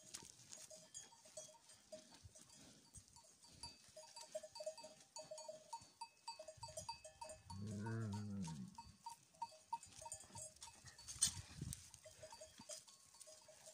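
Sheep bells clinking on and off in quick repeated notes as the flock moves about. About eight seconds in, a sheep gives one long bleat, and a sharp click follows a few seconds later.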